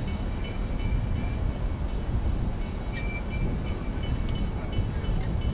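Steady low rumble of city street traffic, with a few faint short high chirps and light clicks.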